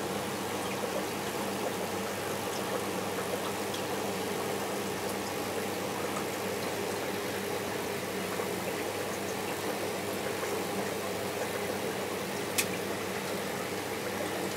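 Steady hum and hiss of reef aquarium equipment such as circulation and return pumps, with one sharp click near the end.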